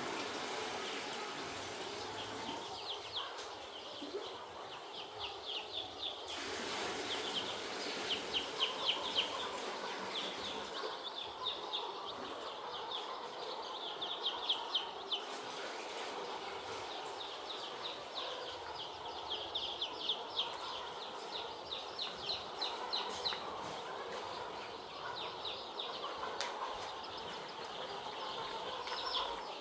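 A flock of young chicks peeping continuously, many short high-pitched chirps in quick runs over a steady background hum.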